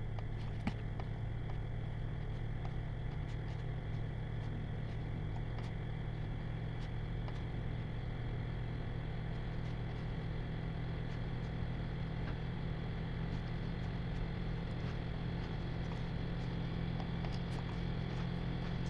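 Steady low room hum with a few faint, scattered computer mouse clicks.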